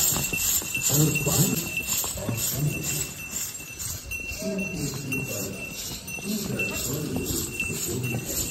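Bells on a riding horse's harness jingling in a steady rhythm, about two jingles a second in time with its walk, with voices talking underneath.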